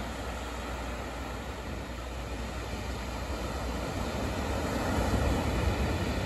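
Ocean surf breaking and washing up a pebbly beach: a steady rushing noise that swells about four to five seconds in.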